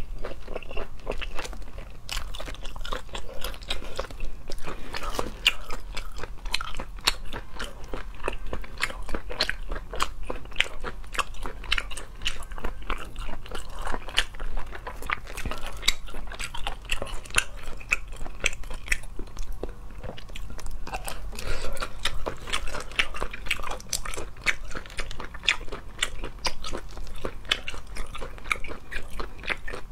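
A person chewing and biting cooked octopus tentacles, with a dense, irregular stream of mouth clicks throughout.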